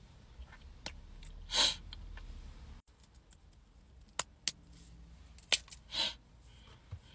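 Close handling sounds with no speech: a short rustle, then a few sharp clicks and another short rustle, from hands working a lip balm stick and hair.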